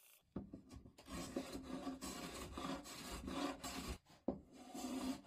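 Hand sanding the edges of a spruce box panel: quick back-and-forth rubbing strokes of abrasive on wood, with a short pause about four seconds in.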